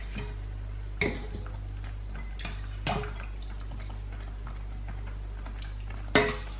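A kitchen utensil clinking against a stainless steel pan while fettuccine is tossed and lifted in it: a few separate light clicks about a second, three seconds and six seconds in, the last the loudest, over a steady low hum.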